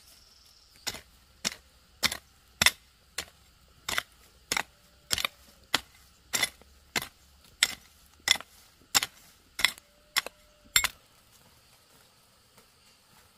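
A steady series of about seventeen sharp strikes, roughly three every two seconds, stopping about eleven seconds in, like a blade or tool hitting something again and again.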